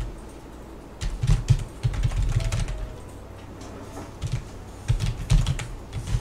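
Typing on a computer keyboard: quick runs of keystrokes in two bursts, with a pause of about a second between them.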